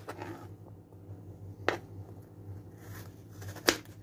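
Kitchen knife cutting through carrot sticks and knocking down onto a plastic cutting board: two sharp knocks about two seconds apart, with softer cutting sounds between.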